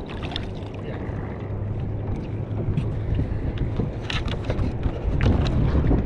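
Wind buffeting the microphone as a steady low rumble, with water splashing as a small fish is swung out of the sea on the line just after the start. Several sharp clicks and knocks follow as the fish and tackle are handled in the kayak, the loudest about four seconds in.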